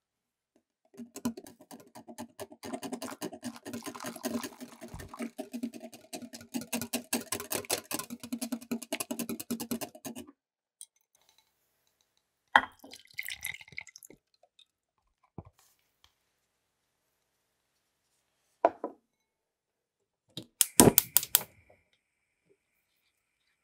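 Wire whisk beating egg yolks in a glass bowl: a rapid, steady clatter of strokes lasting about nine seconds. It is followed by a few sharp clinks and knocks of utensils against a saucepan, the loudest cluster near the end.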